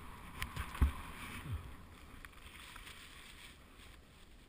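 Snow hissing under a rider carving through deep powder, with wind buffeting the helmet-mounted microphone and a few low thumps in the first second and a half.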